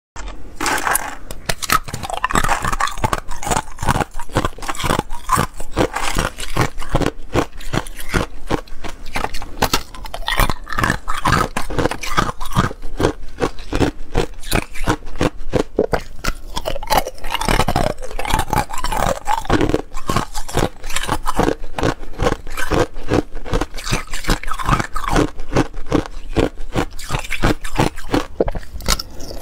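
Thin ice being bitten off a cube-patterned ice sheet and chewed: a dense, irregular run of sharp cracks and crunches.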